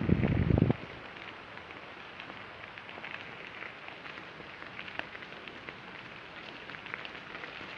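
Mountain bike rolling over a rough trail: steady crackling tyre noise with small ticks and rattles. A loud low rumble in the first second stops abruptly.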